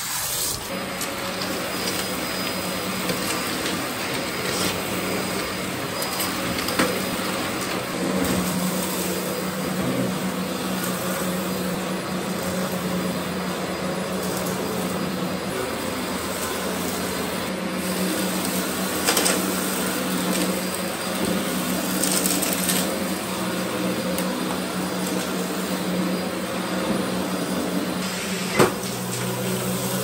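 Dyson DC04 upright vacuum cleaner running steadily, its motor humming under the rush of suction as it is pushed over a grit-covered carpet. A few short clicks and rattles cut through, the sharpest near the end.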